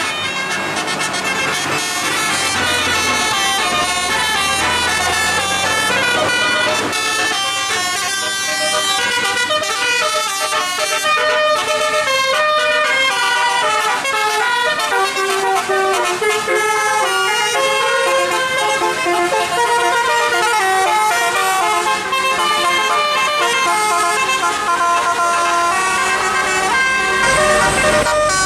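Bus musical air horns (Basuri telolet horns) playing a long, fast melody. Several horn notes sound at once and step quickly from pitch to pitch, with a low rumble under them a few seconds in.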